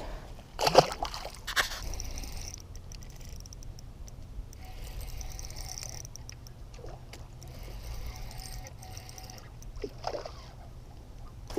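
Water trickling and splashing close beside a kayak, with a couple of light knocks about a second in.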